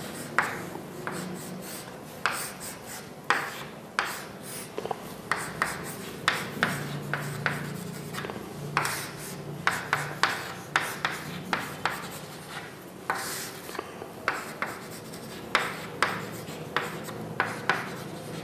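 Someone writing by hand on a board: a run of short, irregular scratching strokes with small pauses between them.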